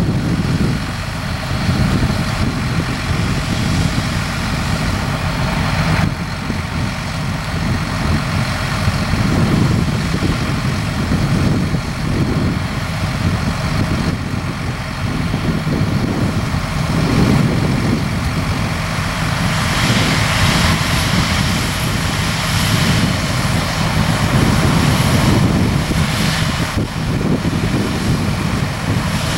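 Combine harvester and a John Deere tractor running side by side at steady working speed while the combine unloads corn into the grain cart: a continuous engine drone and machinery rumble with a broad hiss over it.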